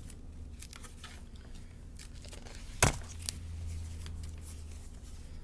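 A thick-paged board book being handled and its pages turned: light rustling and scattered soft clicks, with one sharper knock about halfway through.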